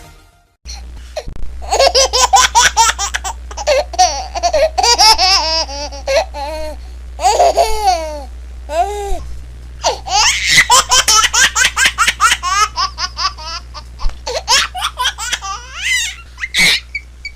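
A baby laughing in long runs of quick, high-pitched laugh bursts with short pauses between them, over a steady low hum.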